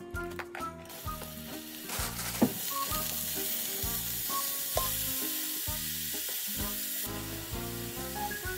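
Bean sprouts, carrot strips and spinach sizzling as they stir-fry in sesame oil in a frying pan, stirred with chopsticks. The sizzle sets in about a second in and stays steady.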